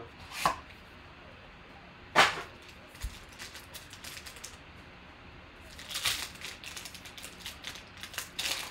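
Foil wrapper of a trading-card pack crinkling and tearing as it is opened by hand: a few short sharp crackles, the loudest about two seconds in, then longer crinkling around six seconds and again near the end.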